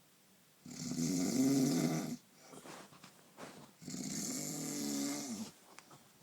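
A sleeper snoring: two long snores about three seconds apart, each lasting about a second and a half, with quiet breathing between them.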